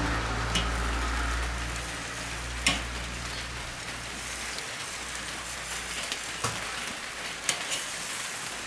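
Pork skewers sizzling and crackling over hot charcoal on a Weber kettle grill as they are turned, with a few sharp metal clicks of tongs against the grill grate. A low hum fades out about halfway through.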